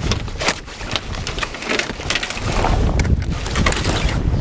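Mainsail cloth rustling and crackling in irregular bursts as it is grabbed and pushed off the boom, over a low rumble of wind on the microphone.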